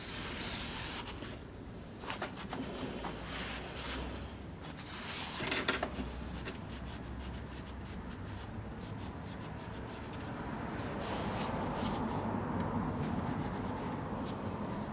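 Hand rubbing and scrubbing on the metal parts of a small benchtop lathe during rust removal, in uneven strokes with a few light clicks, becoming steadier and slightly louder about two-thirds of the way through.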